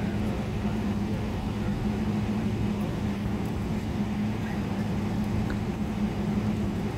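Cabin noise inside a Boeing 777 taxiing: a steady low engine hum with a constant drone and rumble, unchanging throughout.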